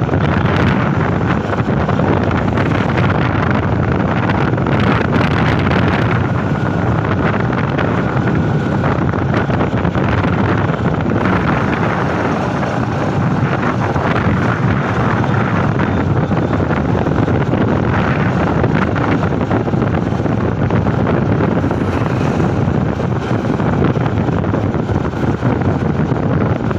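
Wind rushing over the microphone on a moving motorcycle, a loud steady roar with the bike's engine and road noise underneath.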